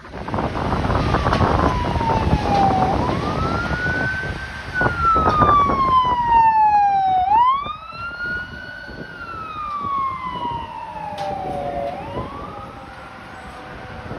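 Carson electronic siren on a Ford F-550 ambulance sounding a wail: the pitch rises quickly, then falls slowly, repeating about every four and a half seconds, over the noise of the passing vehicle. It is loudest in the first half and quieter after about seven and a half seconds.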